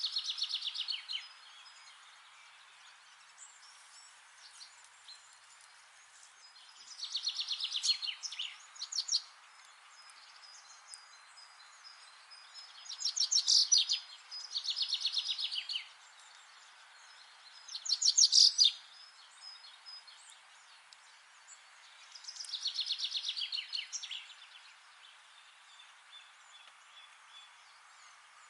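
A songbird singing, phrase after phrase every few seconds. Each phrase is a quick trill of rapid notes, some falling in pitch, over a steady background hiss.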